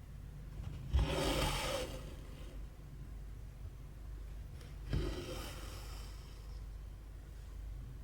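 Cotton embroidery thread pulled through cross-stitch fabric twice, each a short rasping draw of about a second, the first about a second in and the second about five seconds in, over a steady low hum.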